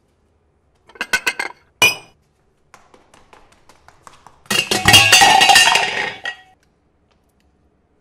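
Cartoon sound effects of dishes: a quick run of small clinks about a second in and a sharp ringing clink just before two seconds, then a loud clatter of plates and cutlery lasting nearly two seconds as the refrigerator gobbles the dishes of food.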